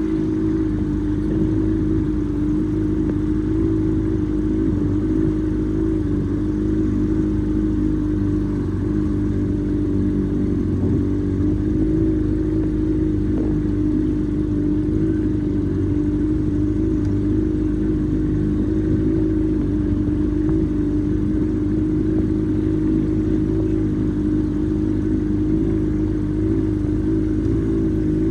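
A 47-year-old boat's engine running steadily at an even speed, a constant droning hum with no change in pitch or level.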